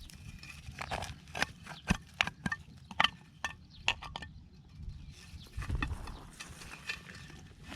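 Irregular clicks and knocks, several a second, giving way about five seconds in to a softer rustling with a few dull thumps.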